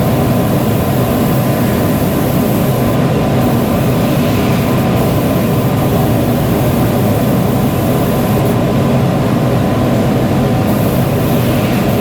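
Steady, loud machine noise with no breaks and a faint constant tone.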